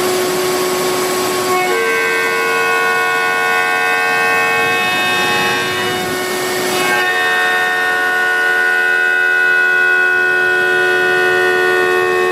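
CNC router spindle cutting the wood of a guitar neck: a steady, loud whine of several tones over a hiss of air. About a second and a half in the whine jumps to a higher, fuller set of tones, dissolves into hiss for about a second near the middle, then comes back.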